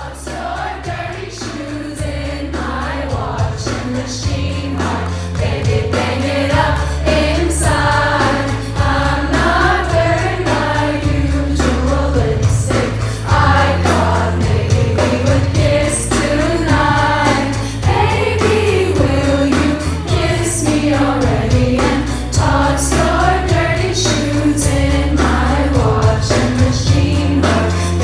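Live pop song played loud through a concert PA: a woman singing the melody over a stepping synth bass line and drums, the music swelling over the first couple of seconds.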